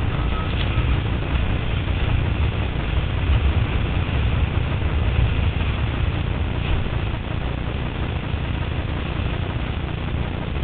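Steady wind rumble buffeting the microphone on a windsurf board under sail, with water rushing and splashing past the hull.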